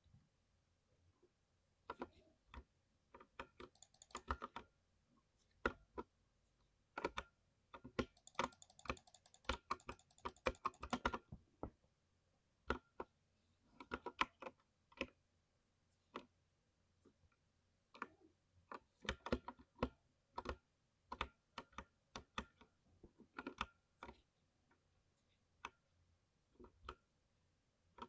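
Typing on a thocky mechanical keyboard: irregular runs of keystrokes with pauses between them. The busiest stretch comes about a third of the way in, with a brighter rattle on top of the keystrokes.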